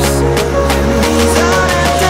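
Background music: an instrumental passage of a dance-pop track, with sustained notes over a deep, steady bass.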